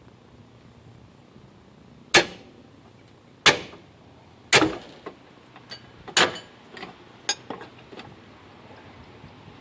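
Four sharp, loud strikes on metal, each followed by a brief ringing tail, then a run of lighter clicks and taps: tool work on the trailer's axle and undercarriage.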